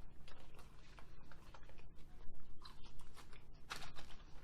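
People chewing chicken nuggets close to the microphone: irregular small mouth clicks and smacks, several a second, with one louder click near the end.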